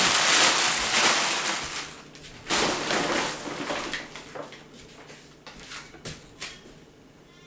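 Plastic shopping bag rustling and crinkling as it is handled, in a long spell over the first two seconds and again for about a second a little later, followed by a few faint knocks.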